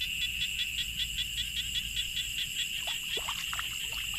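Frogs and insects calling in a steady chorus: a continuous high trill with a rapid pulsed call repeating about five times a second.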